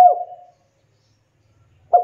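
Spotted dove (tekukur) cooing: the last note of one call fades out about half a second in, then a pause, and the next call begins near the end.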